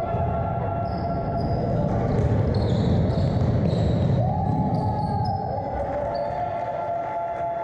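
Basketball game noise in a large echoing gym: a ball bouncing on the hardwood court, sneakers squeaking in short high chirps, and players' voices, over a steady hum.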